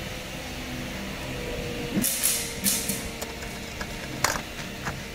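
Foot-operated wheel brake pedal of a folding garden wagon being pushed into the lock position: a few short scraping rustles about two seconds in, then a single sharp click a little after four seconds in as the brake engages.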